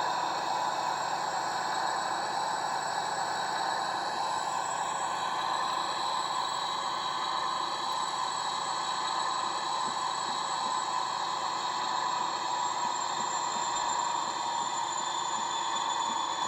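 Model HST power car's sound decoder playing a recorded Paxman Valenta diesel engine through a small speaker: a steady running engine with a high whine, its pitch shifting slightly about five seconds in.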